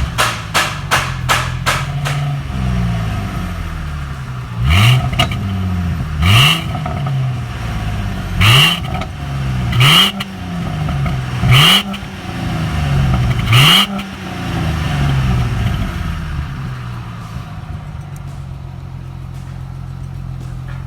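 A 2006 Ford Mustang's 4.0 L V6, its stock exhaust fitted with a clamp-on turbo whistle at the tailpipe, is revved about six times from idle. Each blip rises and falls, with a brief higher whistling tone at the top of the rev, and the engine then settles back to a steady idle. A quick series of sharp clicks comes in the first two seconds.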